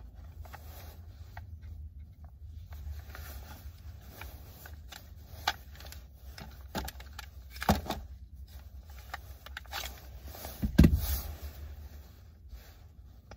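Handling noises from a new .45 pistol and its case: light scrapes with a few sharp clicks and knocks, the loudest about eleven seconds in, over a low steady rumble.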